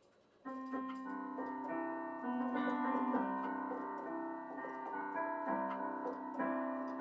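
Piano playing a gentle melody over held lower notes, starting about half a second in after a moment of near silence.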